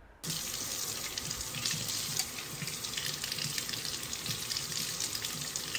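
Kitchen tap running into a sink, water splashing steadily over a hard-boiled egg being peeled under the stream; it starts abruptly about a quarter second in.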